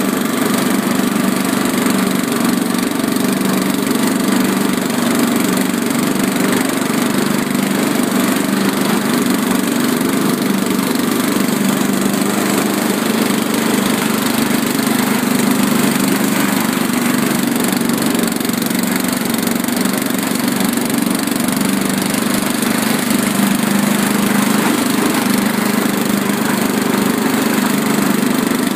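Riding lawn mower's engine running loudly and steadily at a constant speed.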